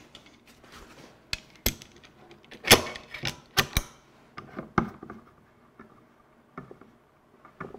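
Bar clamps being fitted and tightened on a glued wooden bench leg: a scattered series of sharp clicks and knocks of the clamps' metal bars and jaws against the wood, the loudest about three seconds in.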